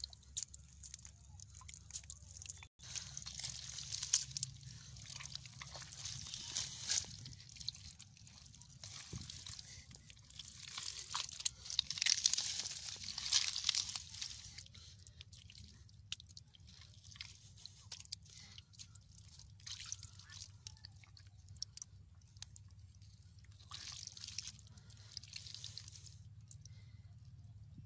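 Wet mud squelching and muddy water sloshing and dripping as hands dig into a waterlogged hole where fish lie in a shallow puddle. Many small clicks and splashes come and go, busiest about halfway through.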